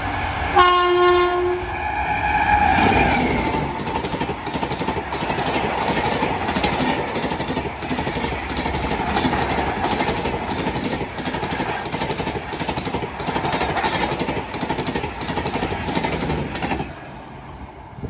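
WAP-7 electric locomotive's twin-tone horn sounding as a Rajdhani Express runs through a station at about 130 km/h. One tone sounds about half a second in, then a second tone of a different pitch follows until about three and a half seconds. The coaches then rush past with a rapid, regular clatter of wheels over the rail joints, which drops away suddenly near the end as the last coach goes by.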